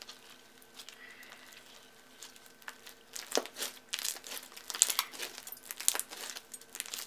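White glue-based slime mixed with soft beads being squeezed and kneaded by hand: quiet at first, then a dense crackling of small clicks and pops from about three seconds in as the slime is pressed between the fingers.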